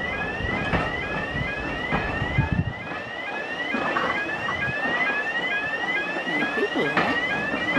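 Electronic warning alarm sounding a repeating rising yelp, a little over two sweeps a second, over the low rumble of slowly passing railway coaches; the rumble drops away about three seconds in.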